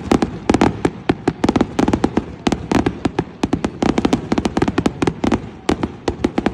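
Fireworks display: a rapid, unbroken barrage of sharp bangs and crackles, several a second.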